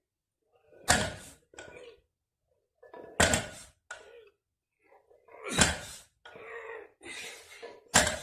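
A 125 kg loaded barbell touching down on brick paving at the bottom of each deadlift rep: a heavy thud about every two and a half seconds, four times. Between the later reps, the lifter's heavy breathing.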